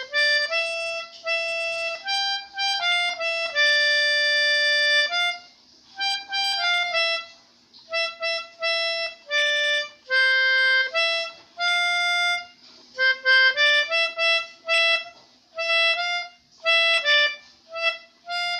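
Pianika (melodica) playing a tune one note at a time, in the manner of the telolet bus-horn melodies, with short clipped notes and a few notes held for a second or more.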